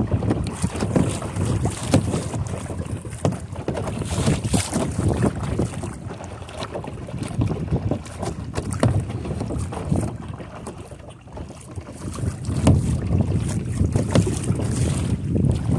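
Wind buffeting the microphone on a kayak, with water splashing and swishing as a double-bladed kayak paddle dips in on each stroke. The wind eases briefly about two-thirds of the way through.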